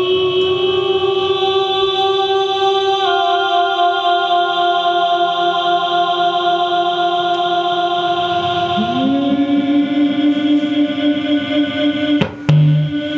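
Live electronic music of long held drone chords that shift to new pitches about three seconds in and again near nine seconds. Near the end there is a sharp click and a brief dropout.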